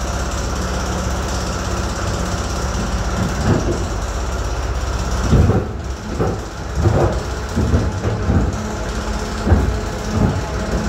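Inside a suburban electric train: a steady low hum from its electrical equipment, then from about five seconds in a run of irregular knocks and rumbles.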